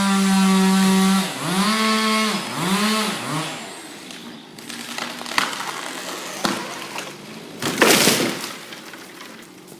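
Two-stroke chainsaw running at full throttle, then let off and blipped twice, its pitch dropping and rising, before it dies away. Later come a few sharp knocks and one short loud rushing burst about eight seconds in.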